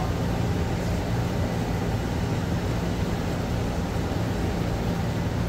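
Wire drum of a Moly Cut fast wire EDM running steadily, its motor turning the spool as the drum traverses toward its right-hand limit. A steady hum with a low drone underneath, unchanging throughout.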